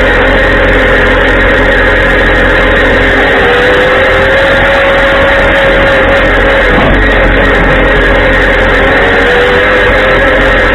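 Tractor engine running steadily under the mic, its pitch drifting up a little a few seconds in and again near the end.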